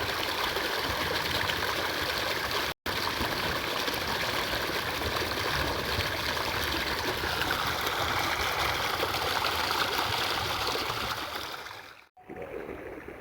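Steady rushing of flowing water, as of a stream. It cuts out for an instant about three seconds in and drops away near the end.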